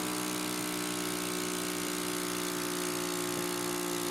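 Cough Assist mechanical cough machine running with a steady, even hum of several tones. The machine forces air into the airway and draws it back out to mimic a cough.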